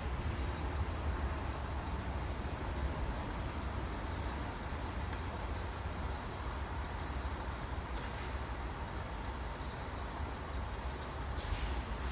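A running engine's steady low rumble, with a few faint sharp knocks from dent-repair hammering, the loudest near the end.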